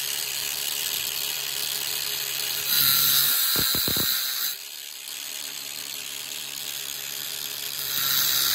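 Angle grinder with a cutting disc running steadily and slicing into a wheel bearing's inner race, which is pressed onto a steel rear hub, to split it off. The disc bites hard twice, once from about three seconds in to past four seconds and again near the end, each time as a louder, harsher hiss over the motor's hum.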